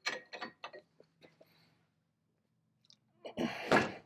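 Steel parts of a restored chain pipe wrench being handled: a few quick light metal clicks, then about three seconds in a louder metal scraping rattle lasting under a second.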